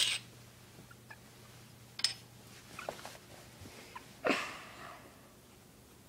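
A cat batting a metal bottle cap about on a hardwood floor: a few short clicks and scrapes about two seconds apart, the loudest about four seconds in.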